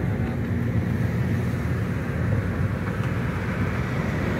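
Steady road noise inside a moving car's cabin: tyre and engine rumble at cruising speed.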